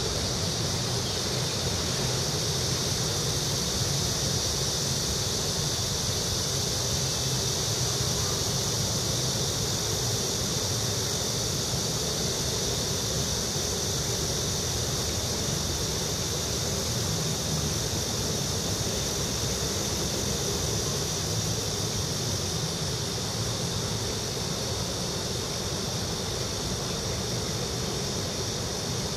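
Steady outdoor ambience: a low, even traffic rumble with a steady high-pitched drone over it, unchanging throughout.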